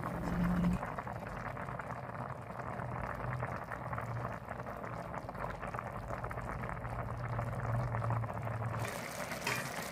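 Pot of chicken and rice in tomato broth at a full boil, a steady bubbling and crackle of breaking bubbles as the rice cooks in the liquid.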